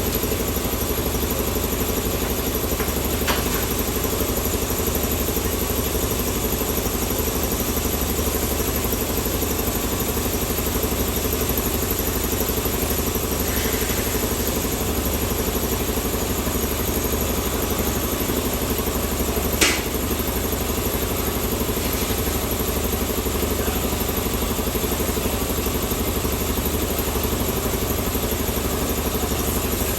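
Steady hum of an idling engine, with a faint click a few seconds in and a sharper click or tap about twenty seconds in.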